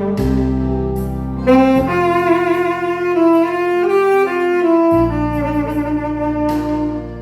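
Saxophone playing a slow melody in long held notes over an accompaniment track with a sustained bass line.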